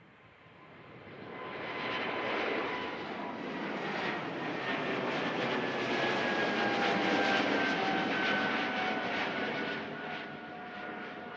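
An airliner's engines at takeoff power as it passes close by. The noise builds from about half a second in, is loudest past the middle, then eases off near the end, with a whine that slowly falls in pitch as it goes by.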